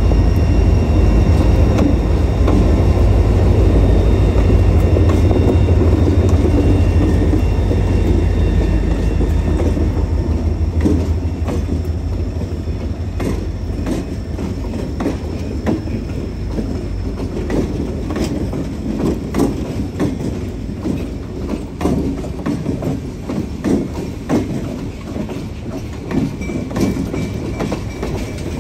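Freight train passing close by: the Lake State Railway's EMD GP40-series diesel locomotives go by with a deep, loud engine drone. About halfway through, the drone fades as the locomotives clear, leaving the freight cars' wheels clicking and clunking over the rail joints.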